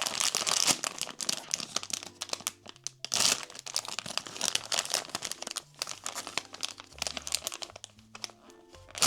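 Plastic blind-box packaging crinkling and crackling as it is handled and opened, busiest in the first half and thinning out after about six seconds, over soft background music.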